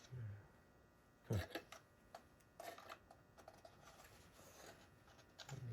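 Small plastic helicopter parts being handled while a missile launcher is fitted: a few faint clicks and knocks with light rustling, the loudest knock about a second and a half in.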